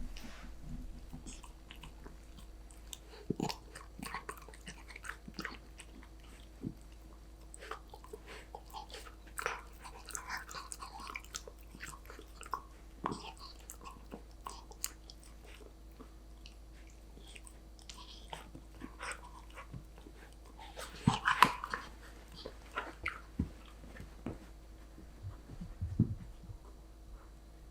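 A golden retriever puppy chewing and biting a treat: irregular crunches and mouth clicks, with a louder run of crunching a little past three-quarters through.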